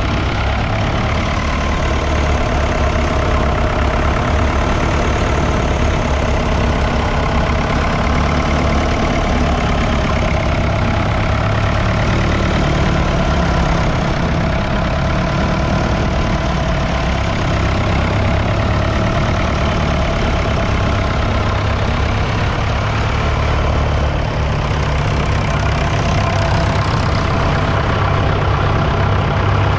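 The twin 3.6-litre four-cylinder Fordson Power Major diesel engines of a 1963 Doe Triple D articulated tractor, running steadily.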